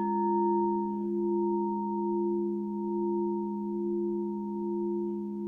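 Singing bowls ringing: one is struck right at the start and its pure tone sustains with a slow, wavering pulse, layered over the lingering lower hum of another bowl.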